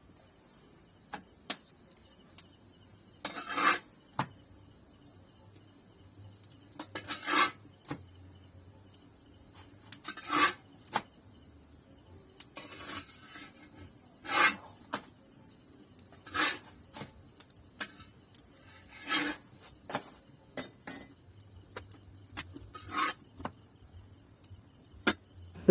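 Roti being cooked on a small clay griddle over a mud stove: short scraping, rubbing sounds every few seconds, with light clicks and knocks of kitchen utensils in between.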